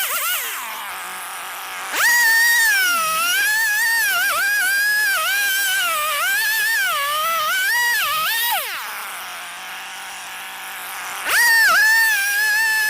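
Stihl two-stroke chainsaw revving up and cutting slab wood, its pitch dipping and wavering under load. It drops back to idle for a couple of seconds, then revs up again near the end.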